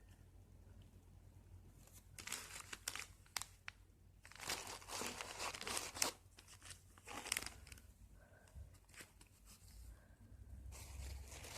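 Packaging wrap crinkling and tearing as it is handled, in several bursts a second or two long with pauses between.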